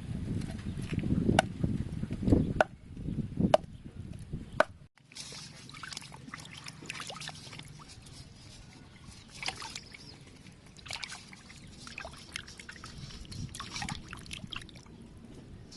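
Food-preparation sounds with water sloshing and trickling, broken by sharp clicks and knocks. About five seconds in there is a cut, after which the sounds are quieter, mostly scattered light clicks and scrapes.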